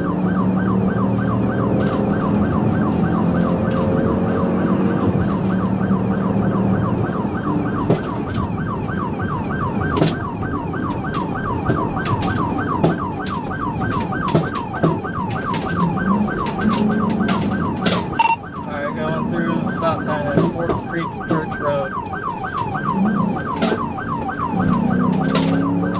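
Police car siren in a fast yelp, sweeping up and down several times a second over the engine and road rumble of the pursuing patrol car. The yelp breaks up briefly about two-thirds of the way through, then picks up again near the end.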